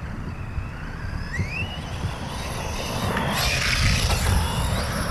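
Reely Raptor 6S RC car's brushless electric motor whining, rising in pitch as it accelerates. About three seconds in it grows louder, with a rush of noise as the car comes close and jumps.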